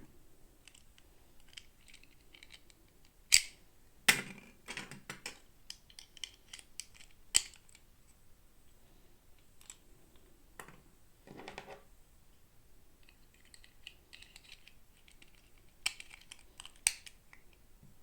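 Small plastic toy packaging and pieces being handled during an unboxing: scattered sharp clicks and taps, with short bursts of crackling in between. The loudest clicks come about three seconds in, at four, at seven and near the end.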